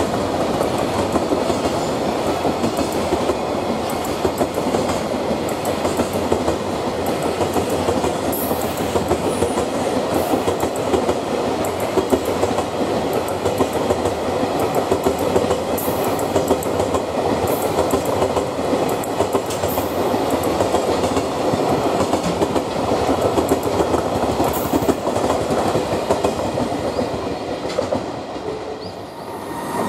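A long freight train of container flatcars rolling past close by, its wheels beating a continuous clickety-clack over the rail joints. The sound fades briefly near the end as the last wagons go by.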